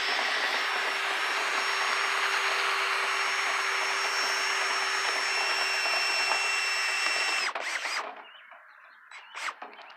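Power drill running steadily at one speed, driving a rotary dryer-vent cleaning brush through the duct, for about seven and a half seconds before it stops. A few faint knocks follow.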